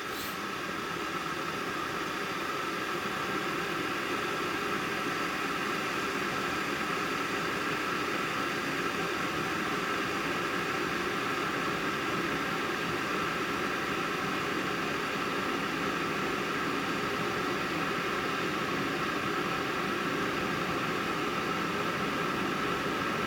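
Single-cup coffee maker brewing: a steady hiss with a hum and a held tone, growing slightly louder over the first few seconds.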